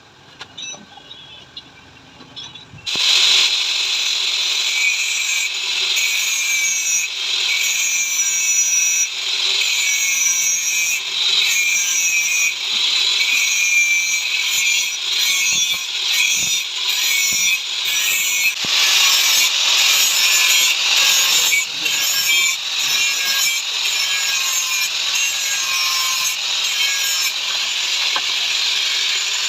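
A power tool working on metal starts about three seconds in and runs with short breaks, loud and hissing.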